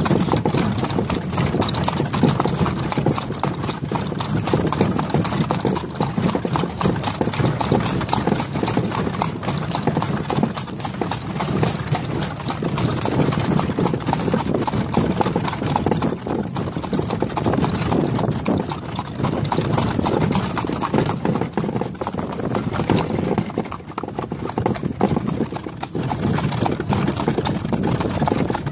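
A harnessed horse's hooves clip-clopping in a steady rhythm on a paved road as it pulls a cart, with the continuous low rumble of the cart rolling along underneath.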